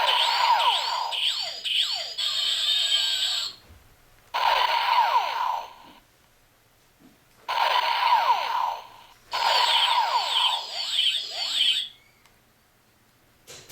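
Electronic ray-gun sound effects from a home-made infrared toy pistol and its target: rapid strings of falling electronic zaps over steady electronic tones, in four bursts of one to three seconds with short pauses between.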